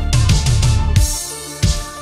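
Electronic background music with a heavy beat and deep falling bass sweeps; about a second in the dense bass drops away, leaving sparser drum hits.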